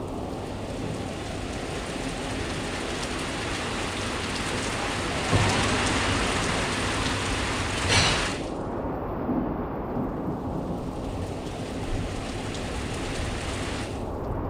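Heavy rain pouring steadily, with a louder stretch of a few seconds around the middle that stops suddenly.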